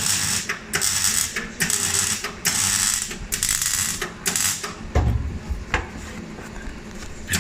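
A hand ratchet being worked in quick back-and-forth strokes, about seven rasping bursts in the first four and a half seconds. A dull low thump follows about five seconds in.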